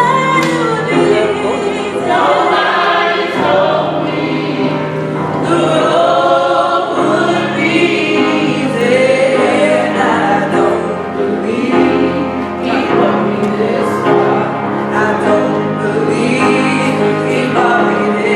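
Gospel singing with accompaniment: voices carrying a melody over held low notes.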